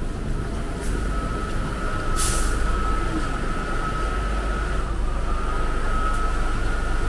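MBTA Red Line subway train running, a steady low rumble with a high whine that dips briefly about five seconds in and comes back. A short hiss about two seconds in.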